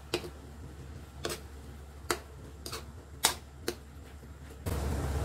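A spatula stirring a wet ground-meat mixture in a metal wok, knocking against the pan in about six sharp, irregular clicks. Near the end a steady hiss with a low hum comes in.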